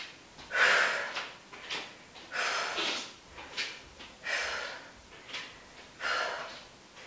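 A woman breathing hard through the exertion of reverse lunges: four loud, hissy breaths about every two seconds, with shorter, fainter breaths in between.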